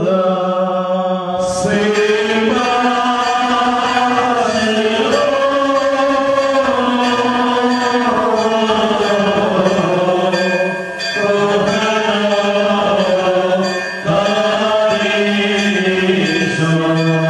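Men's voices chanting a slow Malankara (West Syriac) funeral hymn, long held notes with only brief pauses for breath.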